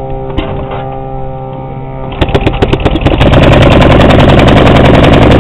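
Antique Waterman single-cylinder two-stroke outboard motor starting: it catches about two seconds in and settles into a loud, rapid, steady run of sharp firing beats.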